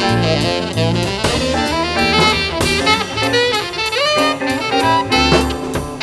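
Tenor saxophone playing a gliding melodic line in a jazz combo, over walking bass notes and drums, with cymbal strokes keeping a steady beat.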